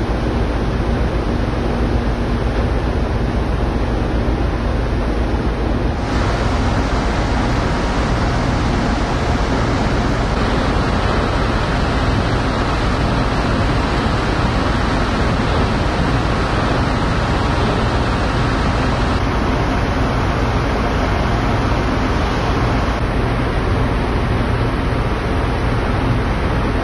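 Steady rushing noise on a ferry's open deck under way: wind on the microphone and churning water over a low ship's rumble, with no single event standing out. The mix shifts abruptly a few times.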